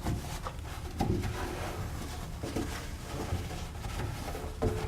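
Faint handling noises while wiping inside a microwave: a few light knocks and soft scrapes over a low steady background.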